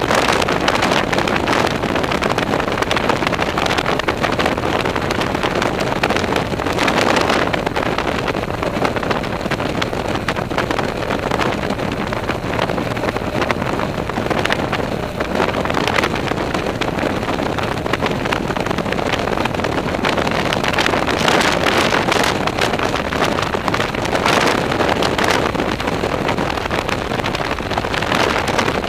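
Wind rushing over the microphone of a motorcycle riding at highway speed, mixed with the bike's steady running noise, swelling and easing now and then.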